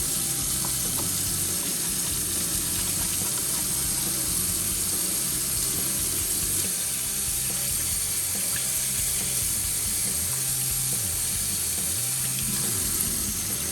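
Kitchen tap running steadily into a sink while hands are washed under it.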